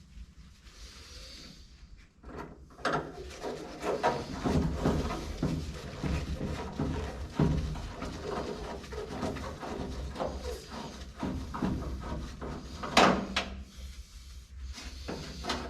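Hand work on a car door's vent window hardware: a screwdriver backing out screws, with irregular metal clicks, squeaks and scrapes. The loudest stroke comes near the end.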